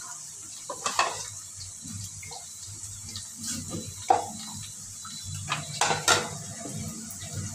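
Kitchen utensils and containers clinking and knocking a few times: once about a second in, again around four seconds, and a quick cluster near six seconds, over a steady low hum.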